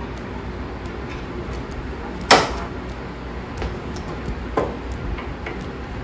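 Metal clanking as a garden tractor's snow plow blade is worked loose from its mount: one sharp, loud clank about two seconds in and a softer one about two seconds later, with a few light knocks between.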